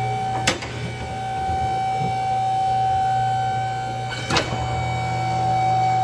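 Ver-Tech M42 cardboard baler's 1.5 hp hydraulic power unit running steadily as the ram lowers into the bale chamber. It holds a constant hum with a steady whine above it. Two sharp knocks come through, one about half a second in and another about four seconds later.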